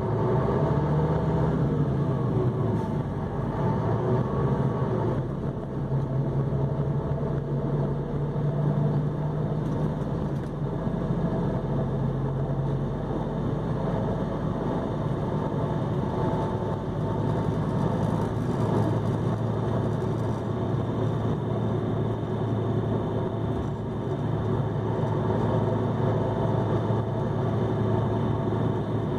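Mercedes-Benz OH-1628L coach's rear-mounted six-cylinder diesel engine running steadily, its note dropping about thirteen seconds in and then holding even.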